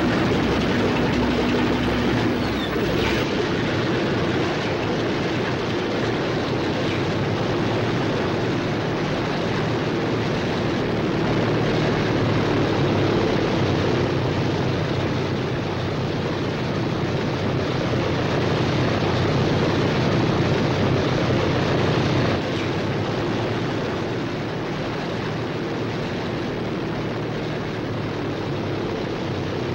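Radial piston engines of B-17 Flying Fortress bombers running on the ground in a steady drone as the planes taxi. The sound steps slightly quieter about 22 seconds in.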